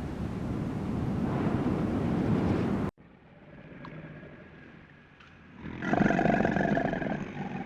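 Steady rushing noise that cuts off suddenly about three seconds in; after a quieter stretch, a farm animal gives one loud, drawn-out call near the end.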